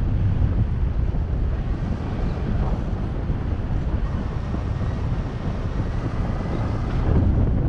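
Wind buffeting the camera microphone in paraglider flight: a steady low rush of airflow.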